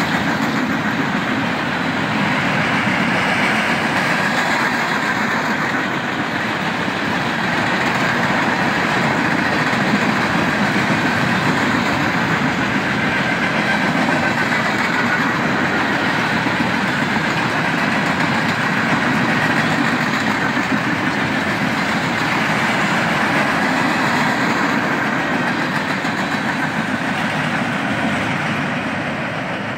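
A CSX freight train of empty flatcars rolling past close by: a steady rolling noise of steel wheels on rail that gets quieter near the end.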